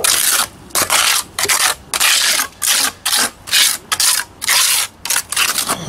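Trowel scraping and rubbing wet cement into the base of a concrete foundation wall, in quick repeated strokes about twice a second.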